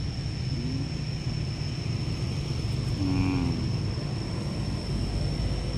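Steady low engine drone, with a constant thin high whine over it, and one brief low, moan-like call about three seconds in.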